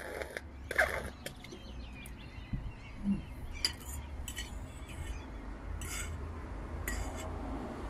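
A handful of separate clinks and knocks of cutlery on a plate and a drink bottle being handled during a meal, the loudest about a second in, over a low steady rumble.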